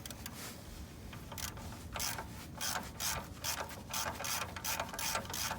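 Ratchet wrench being worked in quick short strokes, about four a second, each a brief rasping click run, starting about a second in, as it turns a 14 mm exhaust nut.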